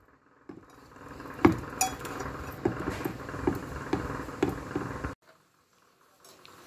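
Stainless steel bowl knocking and clinking as dough is handled in it: a string of irregular taps, sometimes two or three a second, which stops abruptly about five seconds in.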